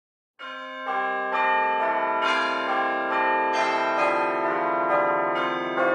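Bells ringing a run of notes, about two strikes a second, each note ringing on under the next. The bells begin about half a second in.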